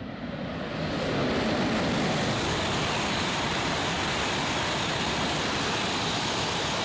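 Shinkansen high-speed train passing at speed: a steady rushing roar of wind and wheels that builds over the first second and then holds.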